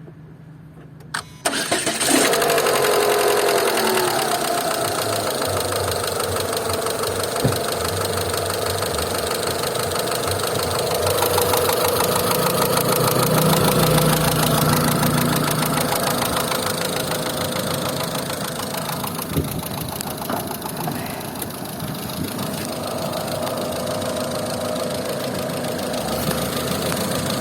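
Renault Mégane II engine starting about a second and a half in, its pitch falling over the next couple of seconds as it settles into idle, then idling with a fast ticking knock that the owner suspects is the hydraulic lifters.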